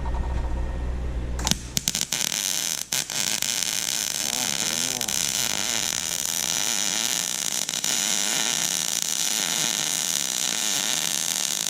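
Wire-feed arc welding: the arc strikes about a second in, sputters briefly, then settles into a steady crackling hiss.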